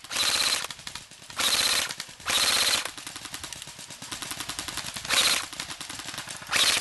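Airsoft electric rifle firing five short full-auto bursts, each a rapid rattle of about half a second, with fainter rapid clicking between them.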